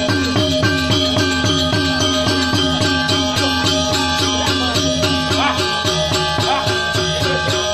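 Balinese gamelan music playing at a fast, steady beat of about four strokes a second, with ringing pitched notes.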